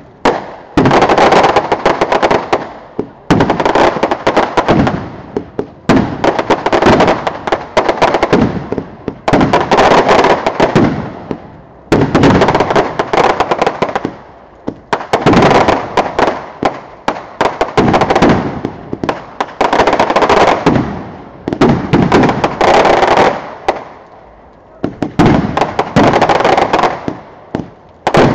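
Fireworks going off in repeated volleys of loud bangs and crackles. A new volley comes about every two seconds, each one dying away in a short lull before the next.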